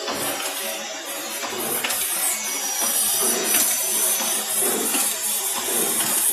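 Aluminium radiator core assembly machine running, with a steady hiss and scattered clicks of the mechanism. A thin high whine comes in about two seconds in and stops about two seconds later.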